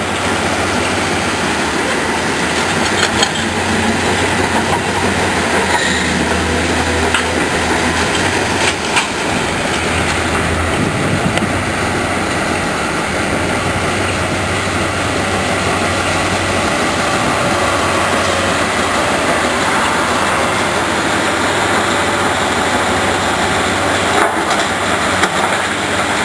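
Nordberg mobile crusher and a Kobelco SK210 excavator working demolition rubble: a steady, loud diesel machinery din with stone clattering through the crusher. Short knocks come a few times, including near the end as the excavator bucket tips rubble into the crusher's hopper.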